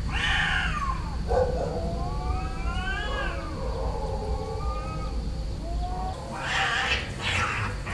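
A domestic cat meowing several times, drawn-out calls that rise and fall in pitch, over a steady low rumble. Near the end the calls give way to short rustling noises.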